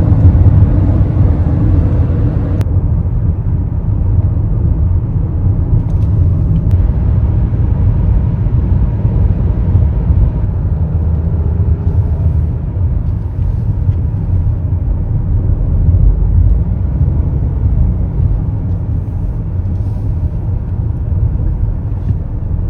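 Car driving at road speed, heard as a steady low rumble of road and wind noise. A brighter hiss in the first couple of seconds cuts off sharply.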